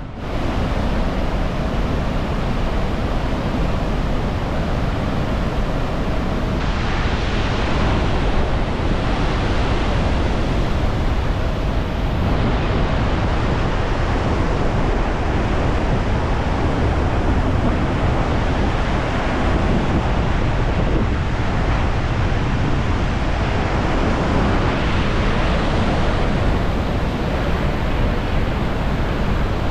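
Iguazu Falls heard up close: the loud, steady rush of a large waterfall, a dense unbroken wash of falling water, a little brighter from about six seconds in.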